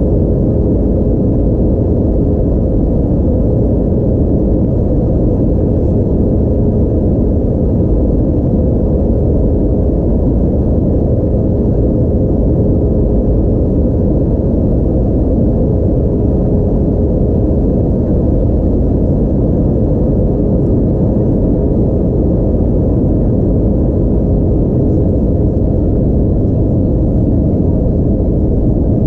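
Steady cabin drone inside an Airbus A320-232 in flight: a low rumble of airflow and its IAE V2500 engines, with a faint steady hum running through it.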